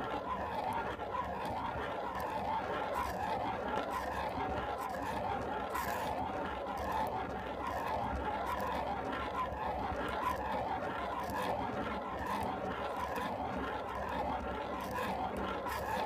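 Ballpoint pen scribbling rapidly back and forth on paper: a steady, continuous scratching.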